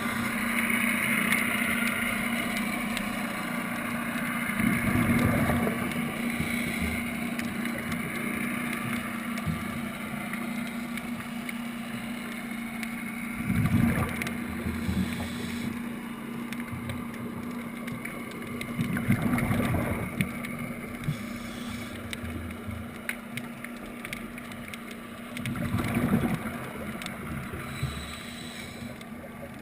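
Underwater scuba audio: a diver's regulator exhalations bubble out in noisy surges about every five to six seconds, over a steady low hum.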